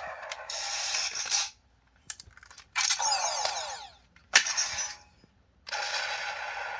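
Gokai Gun toy blaster playing its electronic sound effects. A short effect ends about a second and a half in, followed by a few mechanism clicks. A zapping blast with sweeping pitch comes about three seconds in, a sharp crack follows, and another long effect starts near the end.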